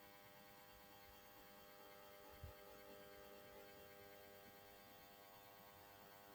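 Near silence: a faint steady electrical hum with one soft low thump about two and a half seconds in.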